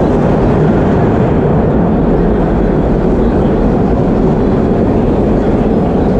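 Vintage BMT Standard subway car running, heard from inside the car: a loud, steady noise of wheels on rails and traction motors.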